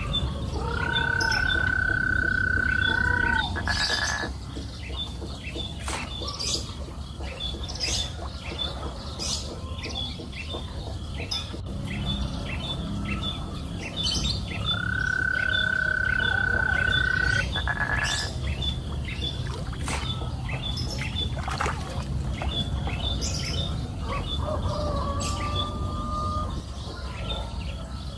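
Birds calling outdoors: a long, steady whistled note comes twice, over a quick repeated high call about twice a second and scattered short chirps, with a steady low background noise.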